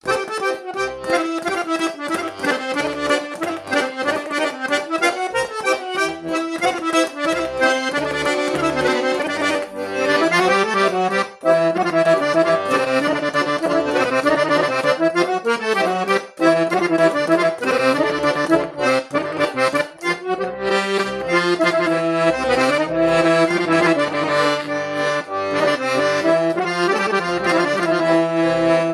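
Piano accordion playing a melody on its treble keys over a rhythmic bass, continuous throughout with only a couple of brief breaks.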